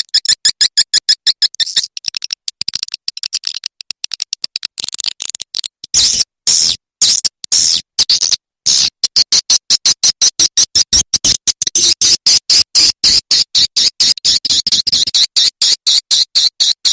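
Recorded edible-nest swiftlet calls played as a lure sound for a swiftlet house: a fast train of short, high chirps, about five a second, with a few brief breaks near the middle.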